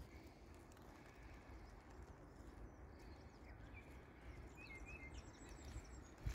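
Near silence: faint outdoor ambience with a low steady rumble and a few faint bird chirps, about three and a half and five and a half seconds in.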